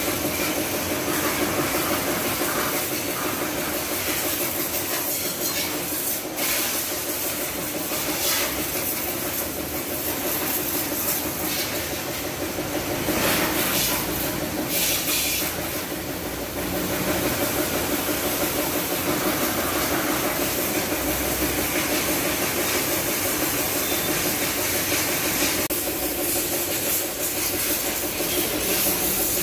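High-pressure washer jet spraying water onto a motorcycle's wheels and bodywork: a steady hiss of spray over the continuous hum of the washer's pump.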